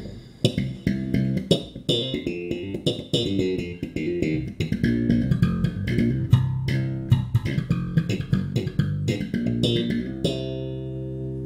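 Custom six-string electric bass played as a quick run of plucked notes, ending about ten seconds in on a held note left ringing. Both outer jazz-bass pickups are on and coil-split, so it plays through single coils.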